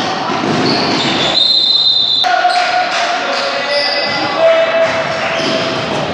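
Basketball game sounds echoing in a large sports hall: the ball bouncing on the wooden court amid shouting voices of players and spectators, with a high steady tone lasting about a second, around a second and a half in.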